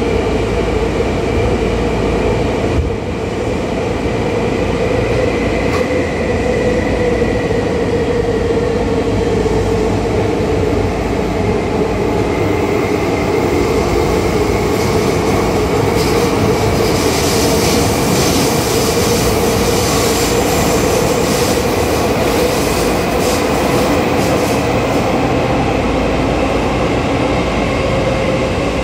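Tokyu 8500 series electric train running in a tunnel, heard from inside a motor car: a steady hum from the Hitachi traction motors and gears over wheel and rail rumble. A stretch of high-pitched wheel noise comes in around the middle and fades again.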